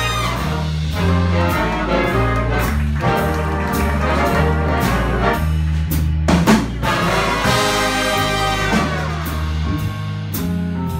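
Live big band playing an instrumental swing passage: saxophones and brass over bass and drum kit with cymbal strokes, with a louder accented ensemble hit about six seconds in.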